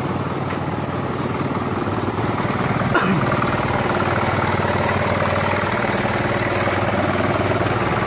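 Isuzu 4HL1 common-rail four-cylinder diesel engine idling steadily. A sharp click about three seconds in, after which it runs slightly louder.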